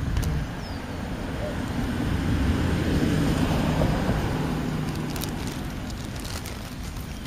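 A passing vehicle: a low rumble that swells to its loudest about three seconds in and then slowly fades away.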